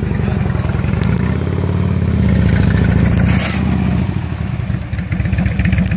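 Harley-Davidson touring motorcycle's V-twin engine running at low speed through tight cone turns, getting louder as it comes close, easing off about five seconds in and picking up again near the end.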